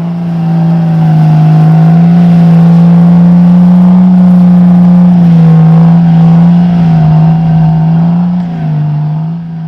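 Jeep Cherokee XJ's engine revving high and held there as the Jeep drives through snow. The pitch sags and climbs back about halfway through, and again near the end.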